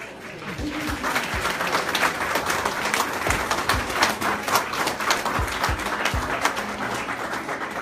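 A roomful of people applauding, a dense patter of hand claps that starts just after the close of a short speech.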